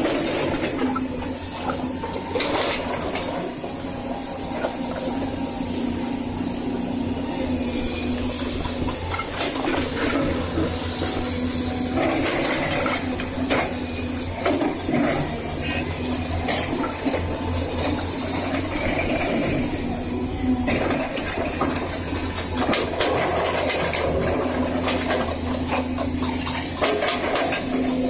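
Excavator's diesel engine running steadily while its ripper tooth tears through soil, with a noisy scraping and clattering that swells and eases several times and short knocks scattered through it.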